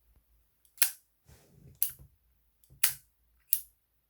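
Zippo windproof lighter's hinged metal lid snapped open and shut, four sharp metallic clicks about a second apart, with faint handling noise between them.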